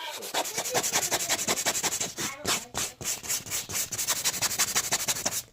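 Hand-sanding a worn leather sofa surface with a piece of sandpaper: quick back-and-forth rubbing strokes, several a second, with a couple of brief breaks.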